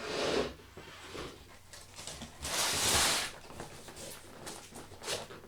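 Cardboard box being handled: rustling and scraping, with a louder rustle lasting about a second near the middle.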